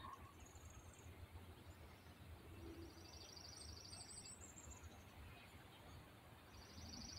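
Faint outdoor quiet with a small songbird's high, rapid trills, several times, one a short descending run of chirps, over a low background rumble.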